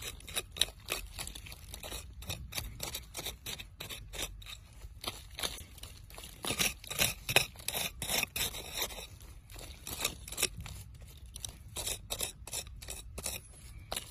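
A wooden stick and fingertips scraping and digging through coarse, gritty sand, making an irregular run of short crunching scrapes that is busiest about halfway through.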